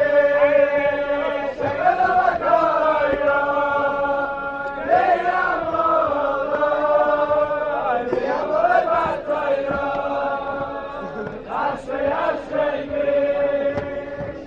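A group of men singing a melody together, long held notes with slides up and down between them, as they dance in a circle.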